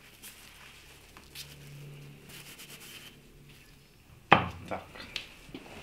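Hard objects being handled at a workbench: faint rubbing and scraping, then one sharp knock about four seconds in, followed by a few lighter clicks.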